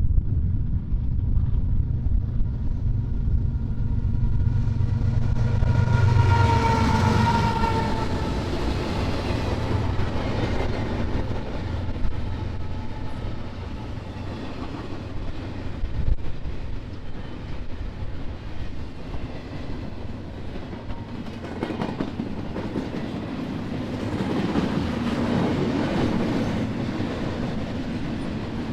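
BNSF diesel freight train passing: a heavy engine rumble from the locomotives, the horn sounding briefly about six seconds in and dropping slightly in pitch, then the cars rolling by with wheel clatter and occasional knocks.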